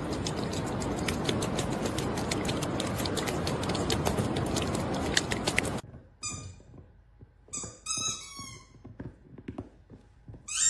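A steady rushing noise with scattered clicks for about six seconds, then it cuts off and a small animal gives several short, high squeaky calls that fall in pitch.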